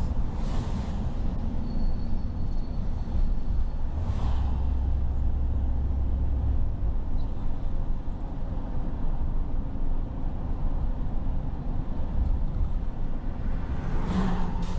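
Steady low road rumble of a car driving on city streets. Three rushing swells of noise, about half a second in, about four seconds in and near the end, are other vehicles passing.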